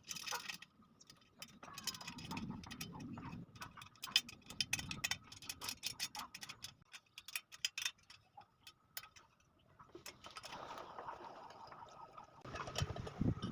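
Irregular light metallic clicks and ticks of wire spokes being handled and fitted between a motorcycle's drum hub and rim, thickest through the first two-thirds.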